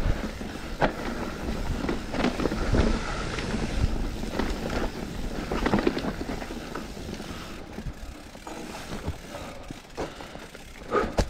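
Enduro mountain bike descending a rough, rocky trail: tyre rolling noise on dirt and stones with frequent knocks and rattles from the bike, easing off after about seven seconds.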